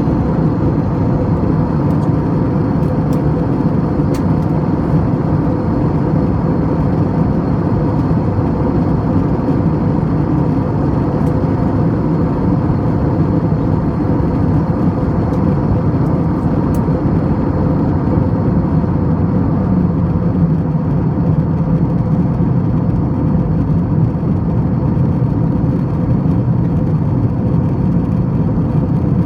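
Cabin noise of an Airbus A321 airliner in flight: a steady roar of jet engines and airflow, with a few faint steady hums over it.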